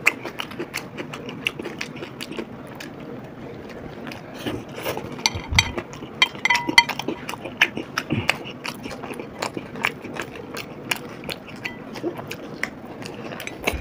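Close-miked chewing of chicken tacos in soft flour tortillas by two people: a steady run of wet mouth clicks and smacks, with a cluster of louder ones around five to seven seconds in.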